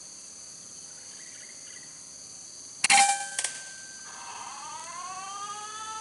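A sharp shot from a Semar Neo FL PCP air rifle a little under three seconds in, with a brief ringing after it and a second sharp crack about half a second later. Insects drone steadily throughout, and a rising whine comes in near the end.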